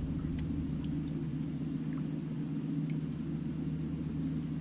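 Electric trolling motor running with a steady low hum, and a couple of faint ticks.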